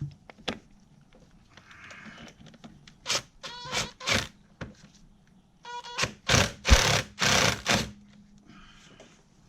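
Socket ratchet clicking in several short bursts as a bolt is run down and tightened, the busiest strokes coming in the second half.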